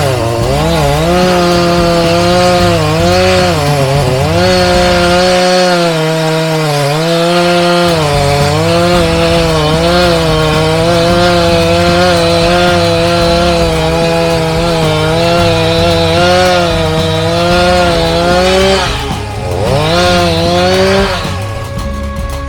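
Gas chainsaw running at high revs while cutting wood. Its pitch sags and recovers several times as the chain bogs in the cut, then falls and climbs sharply near the end.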